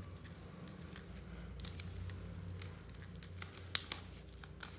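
Faint crinkling of a plastic wrapper and light handling ticks as a wrapped photobook is unwrapped and handled, with one sharper tick near the end, over a low steady hum.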